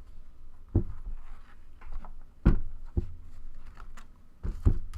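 Cardboard box being opened and handled: a handful of sharp knocks and thumps with soft scuffing between them.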